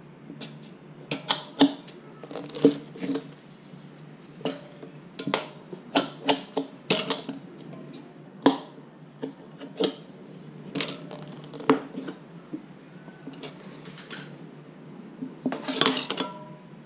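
Metal tire irons clicking and clinking against a spoked dirt bike wheel's rim as the tire bead is levered onto it in small bites, with irregular sharp knocks and a quick flurry of clinks near the end.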